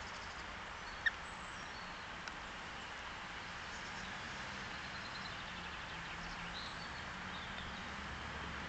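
Steady outdoor background hiss with a low hum, a few faint high bird chirps, and one short sharp chirp about a second in.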